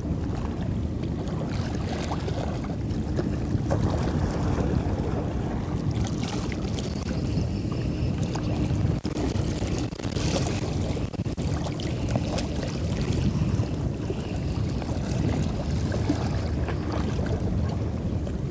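Wind rumbling on the action camera's microphone over choppy sea water, with a steady low hum underneath.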